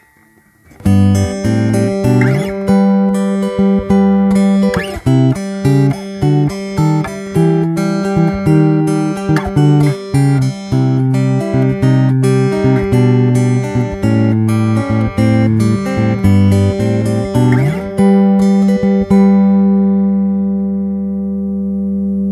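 Flat-top acoustic-electric guitar with a Stratocaster-style body, heard through an LR Baggs M1 soundhole pickup recorded direct with no effects or compression. A run of plucked notes starts about a second in and ends on a chord left ringing for the last few seconds.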